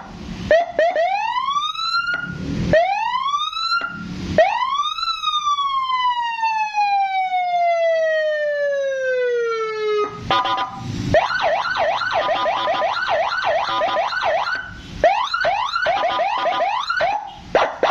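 Senken 100-watt police-escort siren (CJB 100BD, 12 V) sounding through its Big Power horn speaker and cycling through its tones. Two quick rising wails come first, then one long wail falling over about five seconds, then a fast yelp for the last several seconds. Short harsh blasts mark the tone changes.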